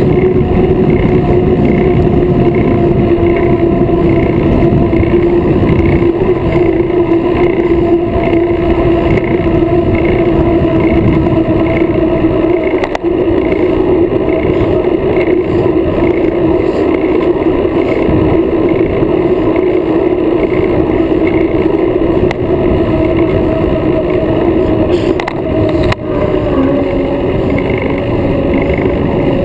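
Wind and road rumble heard through an action camera mounted on a moving road bike, a rough, steady roar with a steady hum beneath it. In the first half, a faint tick comes about twice a second.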